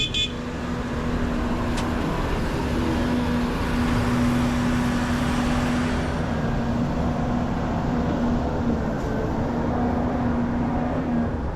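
Heavy earthmoving machinery's diesel engine running steadily, with a steady humming tone over the rumble that stops about a second before the end. A brief click comes right at the start.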